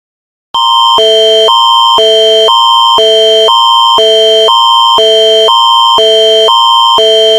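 Canadian Alert Ready emergency attention signal: a loud electronic alarm chord starting about half a second in, a steady high tone with a higher and a lower pair of tones switching back and forth every half second beneath it.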